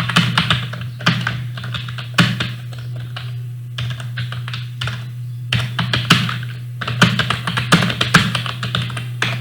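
Typing on a computer keyboard: quick, irregular runs of keystrokes with short pauses, over a steady low hum.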